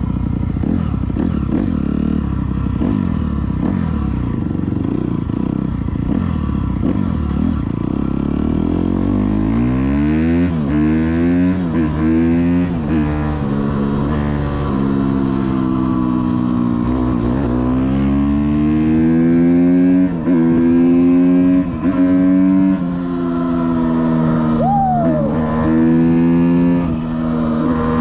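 Suzuki 250 motocross bike's engine under way: a low rumble at first, then from about ten seconds in it revs up through the gears, its pitch climbing and dropping back at each shift, several times over.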